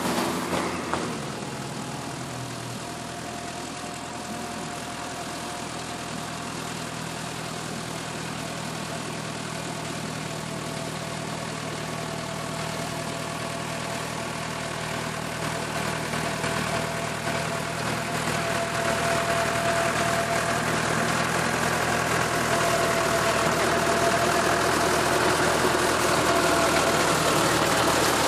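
Tractor engine running steadily while the tractor works its rotary implement through tall dry grass, growing louder as it approaches and passes close by.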